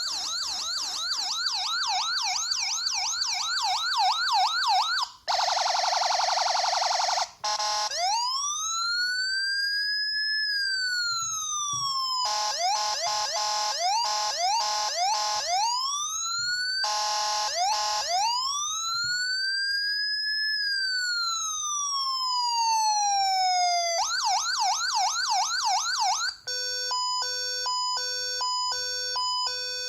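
Electronic police siren stepped through its modes by an RC remote: a fast yelp for about five seconds, a two-second buzzing horn blast, then slow wails that rise and fall alternating with bursts of fast yelp, and near the end a stepped pattern of jumping tones.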